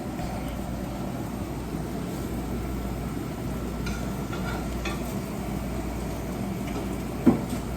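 Shrimp frying in butter in a pan, a steady sizzle, with a few light clicks and one sharp knock near the end.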